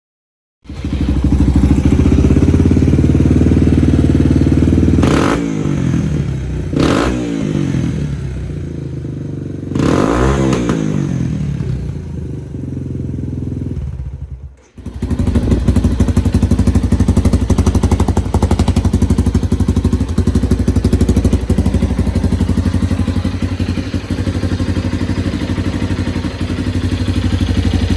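Yamaha TT-R230's single-cylinder four-stroke engine running through a Big Gun full exhaust: idling, then revved up and back down three times, about five, seven and ten seconds in. After a brief break about halfway through, it runs on steadily.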